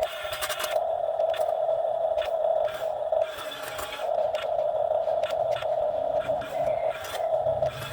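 Excavator working: its engine and hydraulics give a steady whine that drops out for a moment about three seconds in and again near the end, with scattered clicks and knocks.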